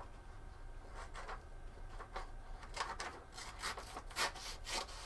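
3D-printed plastic scissors cutting a sheet of paper: short rasping snips, a few at first and then closer together from about halfway. It is a rough cut, with the blades partly tearing the paper rather than slicing it cleanly.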